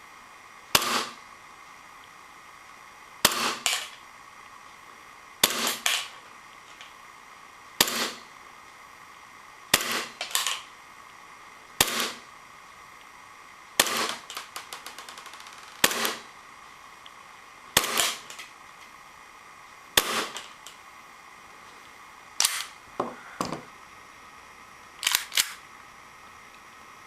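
Tokyo Marui Glock 17 gas blowback airsoft pistol firing single shots, each a sharp crack with the slide snapping back. The shots come one at a time, roughly every two seconds.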